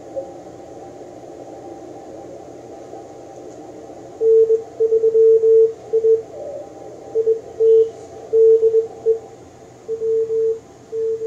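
Icom IC-7610 transceiver receiving a Morse code (CW) station: about four seconds of receiver hiss through the narrow CW filter, then a single-pitch beep tone keyed on and off in dits and dahs.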